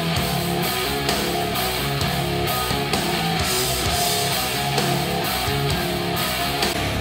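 A song played back through a pair of JBL One Series 104 compact studio monitors, recorded by a microphone in the room. It is a dense, steady music mix with no pauses.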